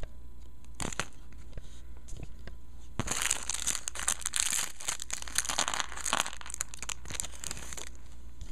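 Small clear plastic bag of LEGO pieces crinkling as it is handled and opened, densest from about three to seven seconds in, after a single click about a second in.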